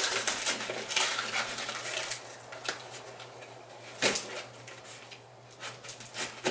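Utility knife slicing through packing tape and cardboard on a shipping box, in short scraping strokes with crinkling, and a sharp knock about four seconds in.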